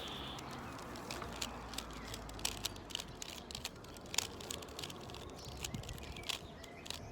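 Stickerless Rubik's Cube being turned by hand: irregular plastic clicks as the layers snap round.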